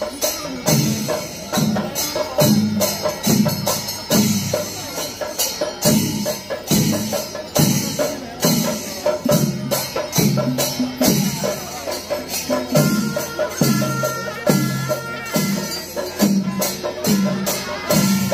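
Traditional Kerala temple procession percussion: drums struck in a steady rhythm of about two strokes a second under a constant clash of small hand cymbals. A faint held higher tone joins in about two-thirds of the way through.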